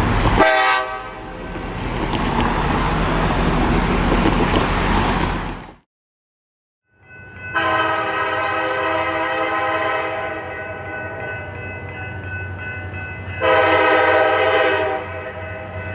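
A loud rushing noise cuts off about six seconds in. After a short silence, the Nathan K5LA five-chime air horn of the lead diesel locomotive, a Norfolk Southern SD70ACC, sounds in one long chord for about seven seconds and grows louder for a second or so near the end.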